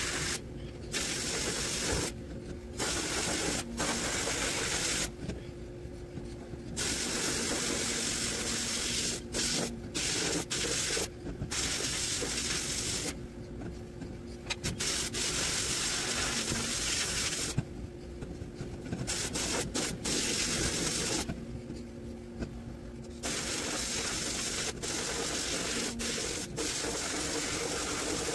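Sandblast cabinet nozzle blasting abrasive at a rusty, painted metal mower part, stripping it to bare metal: a strong steady hiss that stops and restarts about eight times as the trigger is let go. Each pause lasts up to about two seconds. A lower hum goes on through the pauses.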